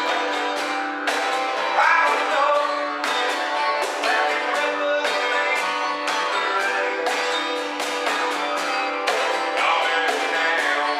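Acoustic guitar strummed in a steady rhythm over the continuous drone of a didgeridoo, played together as a jam.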